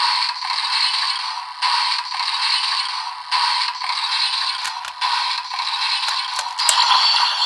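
Tinny electronic standby loop from the DX Primitive Dragon Wonder Ride Book toy's small speaker, repeating about every second and a half. A few sharp plastic clicks in the second half as a Wonder Ride Book is slotted into it.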